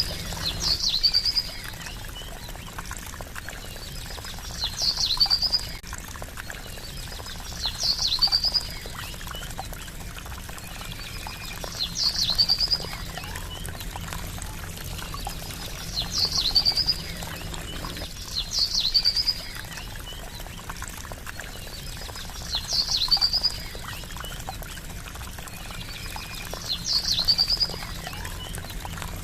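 Water trickling steadily, with a bird giving the same short, high call ending in a quick trill about every four seconds.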